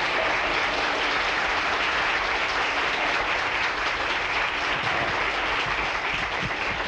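A live audience applauding steadily, greeting a comedian as he comes on stage.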